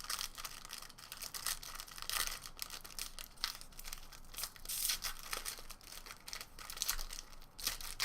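Wrapper of a trading-card pack crinkling and tearing as it is pulled open by hand, with an irregular run of scratchy crackles.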